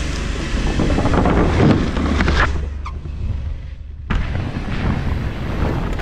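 Wind buffeting a helmet-mounted camera's microphone as a mountain bike rolls down a wooden drop-in ramp and takes off. It goes briefly quieter in the air, then a sudden thump about four seconds in as the bike lands on the inflatable airbag.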